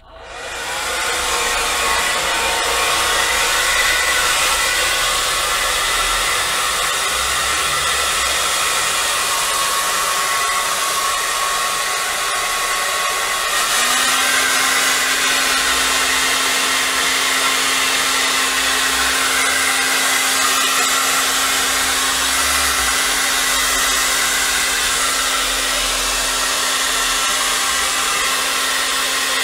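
Handheld hair dryer blowing steadily. It switches on at the start and comes up to full speed within about a second. About halfway through, a low steady hum joins the airflow noise.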